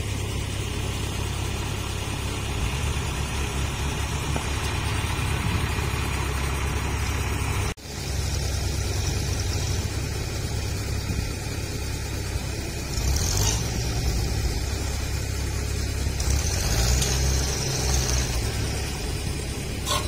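Diesel engine of a Kubota DC-60 rice combine harvester idling, a steady low drone that breaks off briefly about eight seconds in.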